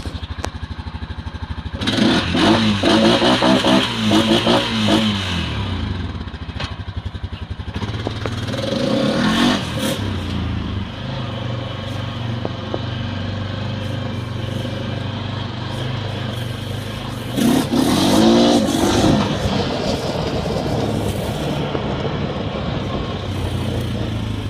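A vehicle engine running with a steady drone, revving up and down twice: from about two to five seconds in and again around eighteen seconds.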